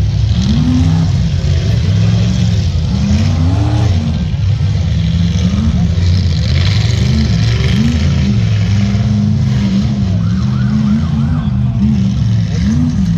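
Off-road race car engine revving again and again as it crawls over boulders, its pitch rising and falling with each blip of the throttle.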